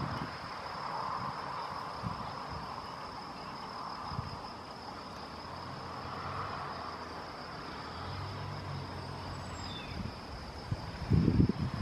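Outdoor background: a steady high-pitched whine over a distant hum of traffic, with a low engine drone passing in the middle, and low wind rumbles on the microphone near the end.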